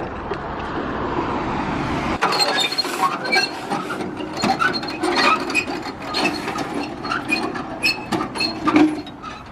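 A rising rumble for about two seconds, then it cuts off. After that comes a run of irregular metallic clinks and short squeaks of metal parts working.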